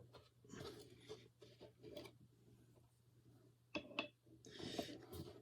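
Faint handling of longboard truck parts against the deck: soft scrapes and rustling, with two small sharp clicks about four seconds in.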